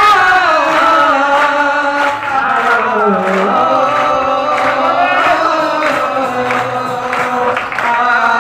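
Singing: a slow, drawn-out melody with long held notes, the voice line sliding down in pitch about three seconds in and holding lower after that.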